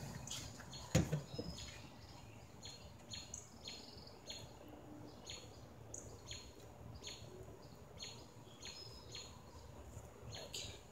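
A bird chirping over and over, short high chirps that drop in pitch, about two a second. A single thump about a second in.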